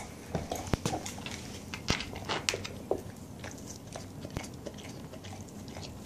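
A pit bull chewing and gnawing at a red rubber Kong toy filled with peanut butter, with irregular sharp clicks of teeth on the rubber among wet chewing sounds.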